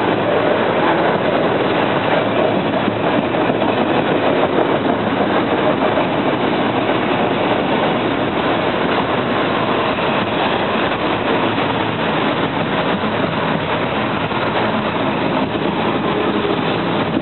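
Norfolk Southern freight train rolling past, a steady noise of its cars running on the rails.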